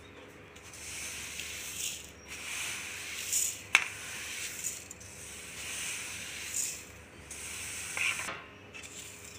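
Flaxseeds poured from a steel bowl into a steel bowl of mashed potato: a dry, hissing rush of small seeds that comes in several surges, with one sharp click a little under four seconds in.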